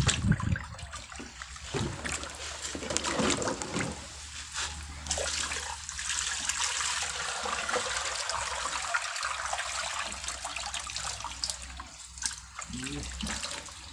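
Water splashing and trickling as hands scoop through a plastic basin of water, with water spilling over its rim and running across a concrete floor, an irregular patter of small splashes throughout.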